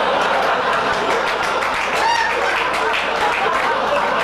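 Live audience applauding, with laughter mixed in.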